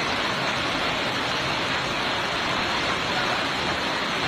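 Steady rush of fast-flowing floodwater pouring down a street.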